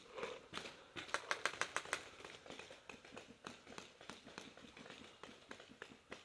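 Paintball markers firing: a quick string of about seven shots about a second in, then scattered fainter shots.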